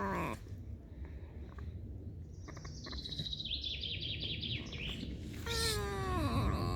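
Pet red fox squeaking. A high thin squeal turns into a rapid chattering run of short squeaks, then a longer whining call slides down in pitch near the end.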